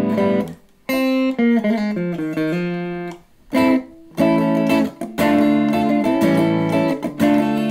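Electric guitar played clean through a Roland Cube 60 modelling amp on its Brit Combo setting with the gain turned low. A short run of single notes steps down in pitch, then a few chords ring out.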